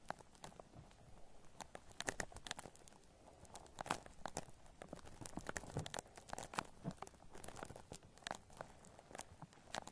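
Shaving cream foam squished and worked close to the microphone, giving irregular soft crackles and pops.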